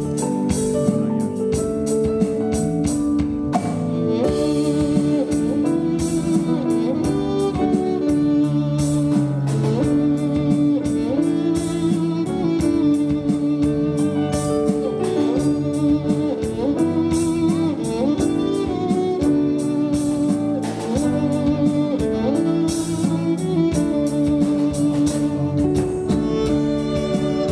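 Live ensemble of violins, cello, saxophones, flute, keyboard and drum kit playing a melodic pop-instrumental piece over a steady drum beat, the violin line sliding between notes.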